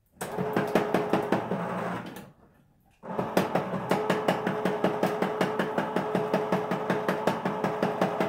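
Electric can opener running, its motor humming with rapid even ticking as it turns a can and cuts the lid. It runs for about two seconds, stops briefly, then starts again and keeps going.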